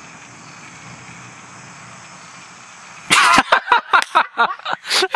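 About three seconds of steady background noise, then a person suddenly bursts into loud laughter in quick, repeated pulses.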